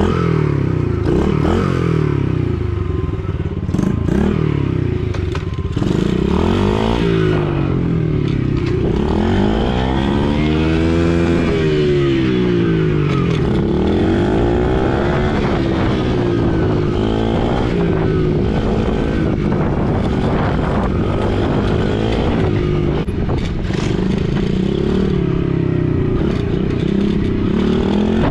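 Small gas dirt bike engine being ridden, its pitch rising and falling over and over as the throttle is opened and closed.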